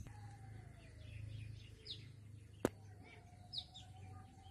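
Small birds chirping faintly outdoors in short, high, falling notes over a low hum, with a single sharp click about two and a half seconds in.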